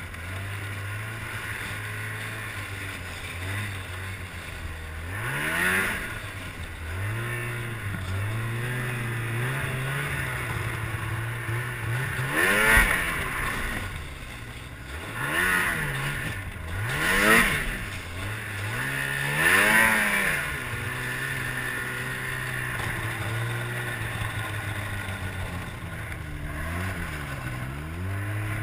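2007 Ski-Doo MXZ 600 X-RS snowmobile's two-stroke engine running at low, steady throttle, with about five quick revs that rise and fall in pitch between about five and twenty seconds in.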